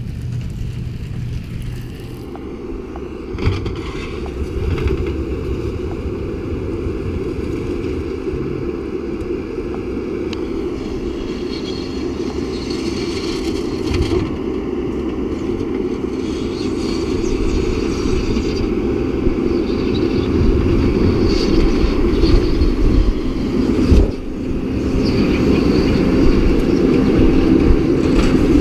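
Tractor engine running steadily, slowly growing louder, with a few knocks and clanks, the sharpest about three-quarters of the way in. Wind noise is mixed in.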